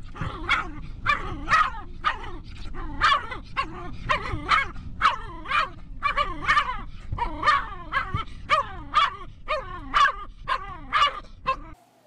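A dog barking over and over inside a moving car, about two barks a second, with the car's low road rumble underneath; the barking cuts off suddenly near the end.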